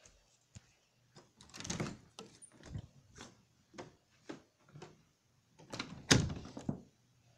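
A run of short knocks, bumps and rustles, irregularly spaced, with the loudest thump about six seconds in.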